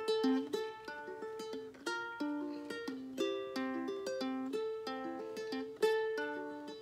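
Solo acoustic ukulele picking single notes in a repeating melodic pattern, an instrumental passage between sung verses. Each note rings briefly and fades.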